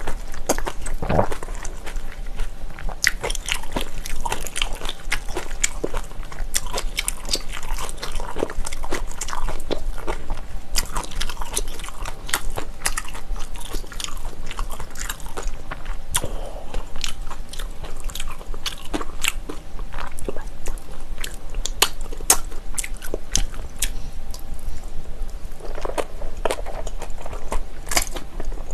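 Close-miked chewing and biting of bibimbap, with a metal spoon clicking and scraping against a stainless steel bowl many times as the rice is mixed and scooped.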